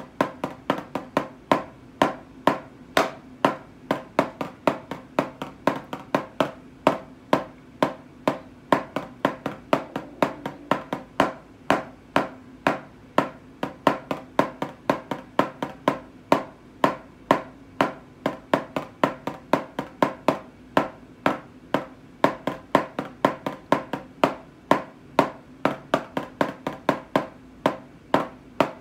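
Wooden drumsticks striking a drum practice pad in a steady rhythm of sharp taps, about three strokes a second, some of them doubled.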